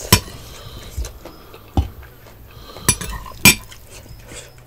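Spoon and dishes clinking at a meal: about five sharp separate clinks, spread out over a few seconds, with quiet between.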